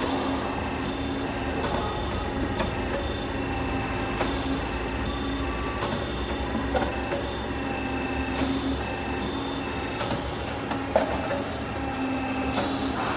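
Downspout elbow machine running: a steady motor hum, with short hisses repeating every couple of seconds and occasional clicks and short beeping tones.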